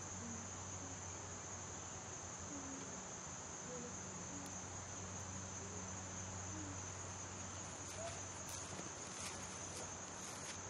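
Insects chirring in a steady high drone over a low steady hum, with a few faint clicks near the end.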